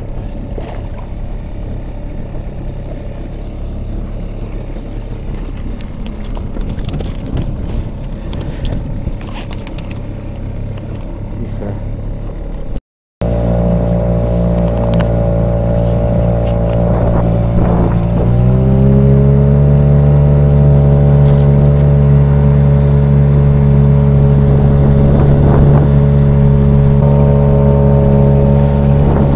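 Small Tohatsu 3.5 hp outboard motor driving an inflatable boat: a steady engine drone that rises in pitch and gets louder about 18 seconds in as the throttle opens, then holds. Before a short break about 13 seconds in, there is a rougher, lower running noise with scattered rustles and clicks.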